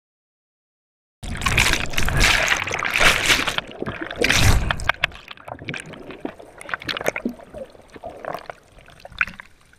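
A diver and the camera plunging into the sea: a sudden loud rush of water and churning bubbles about a second in, lasting a few seconds, then fading into scattered fizzing and crackling bubbles, heard underwater.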